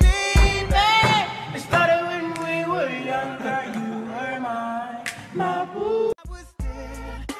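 A song with singing: held, bending vocal lines with hardly any beat behind them. Near the end the music drops out briefly and the drum beat comes back in.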